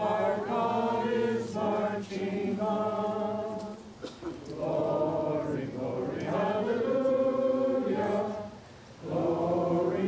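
A group of people singing together in held notes, in phrases broken by short pauses about four seconds in and again near the end.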